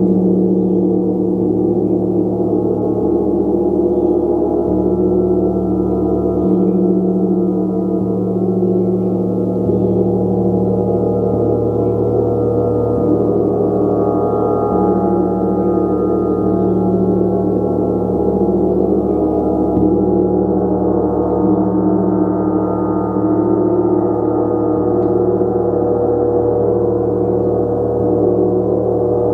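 Gong played continuously: a steady wash of many overlapping ringing tones, with the low tones shifting every second or two and no pauses.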